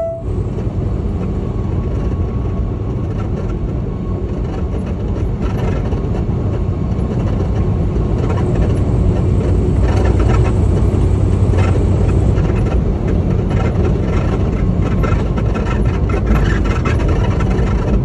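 Steady engine and road noise heard inside a semi-truck's cab while it is driving. The noise grows gradually louder over the first several seconds, with a few faint clicks and rattles.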